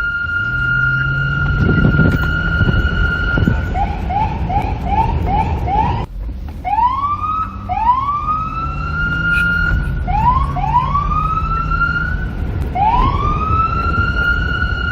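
Police car siren cycling through its tones. First it holds one high steady note for about three and a half seconds. Then it gives about five quick rising yelps half a second apart, and after a brief gap a series of slower rising wails that climb and hold at the top pitch, over a low rumble.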